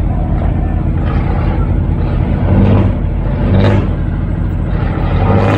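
Fishing boat's diesel engine running loud and steady through its exhaust stacks, swelling briefly with throttle about two and a half and three and a half seconds in and again near the end as the boat is manoeuvred to berth.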